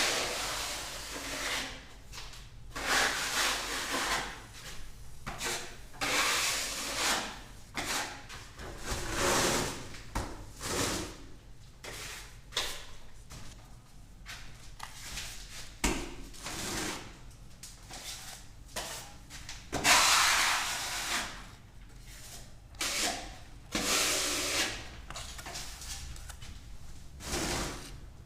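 Hand tools scraping and rubbing on plaster in irregular strokes, each lasting about a second or two.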